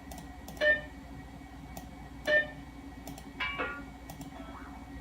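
Macintosh Classic's built-in speaker playing short system alert sounds, three times about a second or so apart, each a brief pitched note that dies away quickly. Faint clicks come between them.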